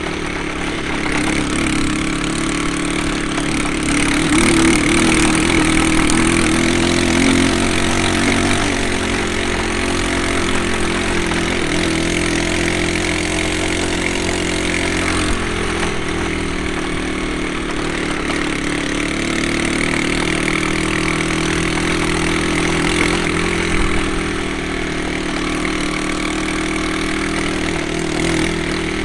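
Wildfire LDB 200 dual-sport motorcycle engine running under way on a dirt trail, louder for a few seconds about four seconds in, then steady.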